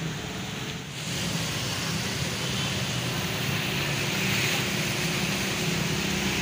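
Motorcycles and auto-rickshaws running through floodwater: a steady hum of small engines under the hiss of tyres swishing through water, growing louder about a second in.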